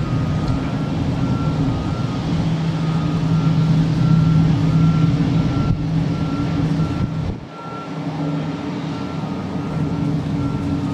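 Customs patrol boat's engines droning steadily at speed under a constant rushing noise, with a short high beep repeating about twice a second; the sound drops briefly about seven seconds in, then carries on.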